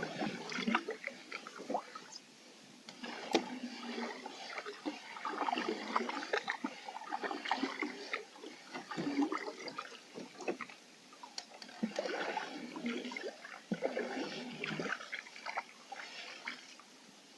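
Canoe paddle slowly dipping and pulling through calm water, with splashes, drips and gurgles off the blade, a stroke every two to three seconds.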